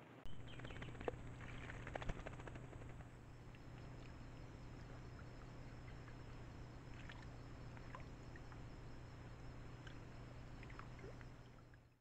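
Trail camera recording of its surroundings: a steady low electronic hum and hiss, with a flurry of faint clicks and rustles about a second in and sparser ones later. A thin high steady tone joins about three seconds in.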